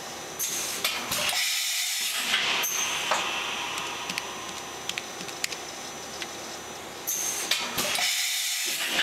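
Makino S56 CNC vertical machining center running under power: a steady hiss with a thin high-pitched whine, swelling louder about half a second in and again about seven seconds in.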